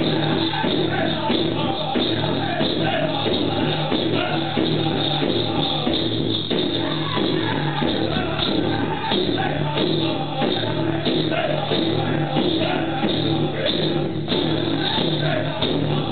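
Music with singing, played for a dancer in regalia.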